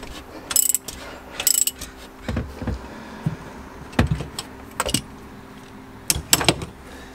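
Metal engine parts and hand tools clinking and knocking as they are handled, a series of separate sharp clinks about one a second.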